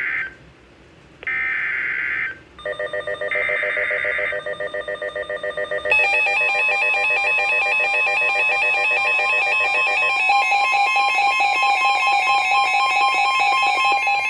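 NOAA Weather Radio emergency alert: three short bursts of screeching digital SAME header data, then a rapidly pulsing electronic beep from about three seconds in, joined about six seconds in by a louder, steady warning alarm tone that runs on.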